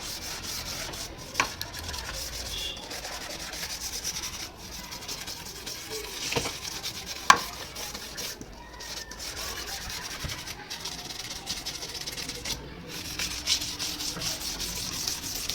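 A brush dipped in detergent water scrubbing a refrigerator part in fast, repeated strokes, with a few sharp knocks now and then.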